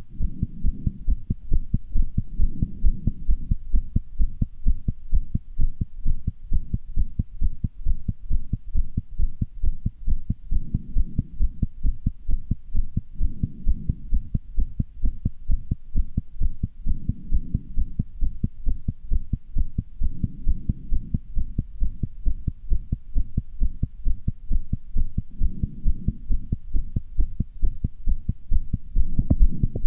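Human heartbeat, beating fast, heard as a rapid, regular train of low thumps: the heart valves opening and closing with each beat.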